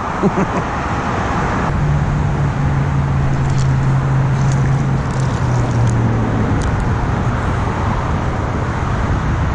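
Steady road traffic noise from nearby streets and a road bridge. For a few seconds from about two seconds in, a vehicle's low, steady engine hum stands out.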